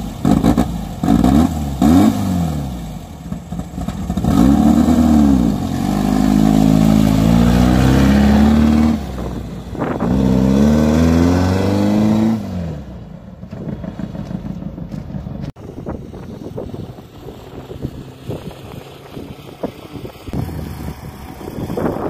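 Air-cooled flat-four engine of a VW Beetle Baja race car revving hard, its pitch rising and falling several times as it accelerates and shifts. About 13 seconds in it drops to a quieter, rougher running sound with more noise.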